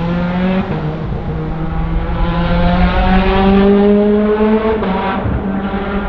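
Supercharged Toyota 2ZZ-GE four-cylinder racing engine of a Lotus 2-11, heard from a distance, running hard under acceleration. Its pitch climbs steadily through a long pull, then drops suddenly about five seconds in.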